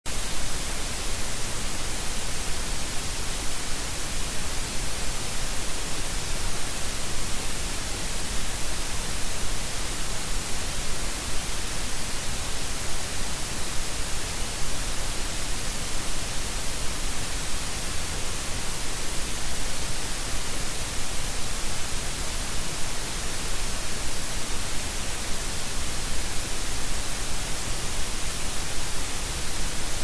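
Steady electrical static: a white-noise hiss, brightest in the high frequencies, with no change in level.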